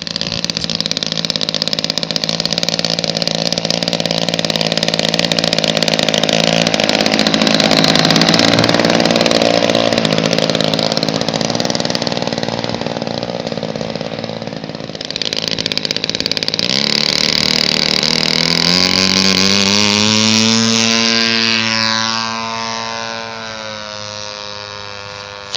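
Super Tigre S3000 30cc two-stroke glow engine of a large-scale RC plane, swinging an 18x8 propeller, running loud and steady at high throttle. Past the middle its pitch rises, then near the end it falls and fades as the plane flies past and away.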